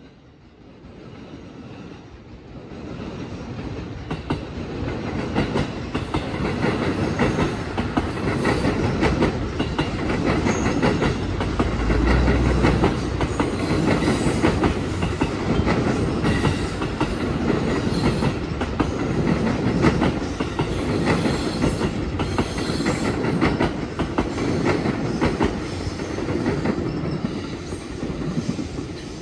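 Electric commuter train running past over the station's tracks and points, its wheels clacking rhythmically on rail joints, with some wheel squeal. The sound builds over the first few seconds and stays steady, easing a little near the end.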